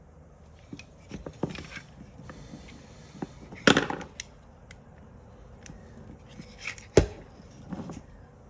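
Parts of a Toyota Hilux seatbelt retractor being handled and taken apart: scattered clicks, short rattles and scrapes, with a louder clatter a little over a third of the way in and a single sharp knock about seven seconds in.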